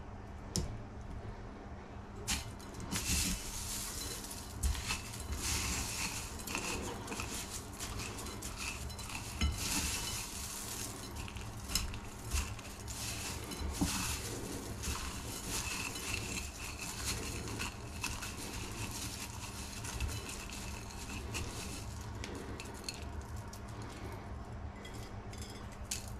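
Dry cornflakes crackling and rustling in a ceramic bowl as hands press and roll a mince-wrapped Scotch egg in them, with light knocks against the bowl, starting about two seconds in, over a steady low hum.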